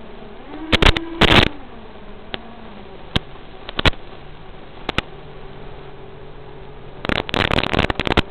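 5-inch FPV quadcopter's motors and three-blade KingKong 5040 props buzzing in flight over the quad's own narrow-band audio feed, the pitch gliding up and down with throttle. Scattered clicks and dense crackles of static break in, about a second in and again near the end, as the video signal breaks up.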